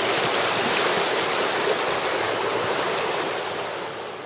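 Rushing water of a river rapid, a steady hiss that fades out near the end.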